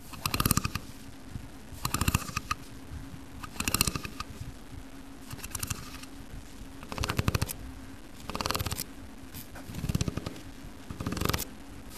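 Fingers raked along a slotted vent in a brick wall, close to the microphone: a rasp of rapid fine clicks, repeated about eight times at intervals of roughly a second and a half.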